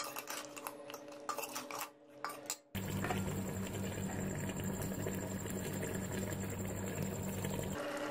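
Metal spoon scraping and clinking against an aluminium cooking pot as boiled goat trotters are stirred and moved about, a scatter of sharp clicks. About three seconds in the sound changes abruptly to a steady low hum that runs until near the end.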